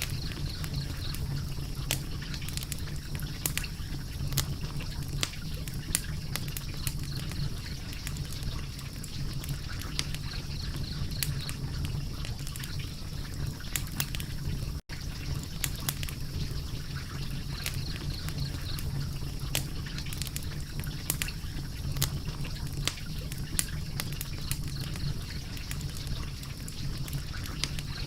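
Wood fire crackling, with frequent sharp pops and snaps over a low steady rumble; the sound drops out for an instant about halfway through.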